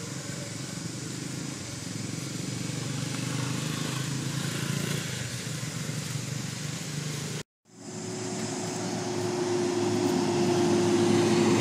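A motor engine running steadily, heard as a continuous hum. The sound cuts out for a moment about seven and a half seconds in, then comes back louder as a steady, even-pitched drone.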